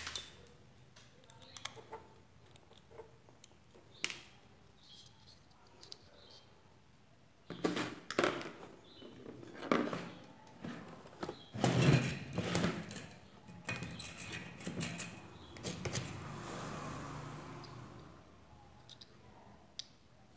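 Handling noise from taking an LED bulb apart on a workbench: scattered clicks and knocks of small metal and plastic parts, with a run of clattering in the middle.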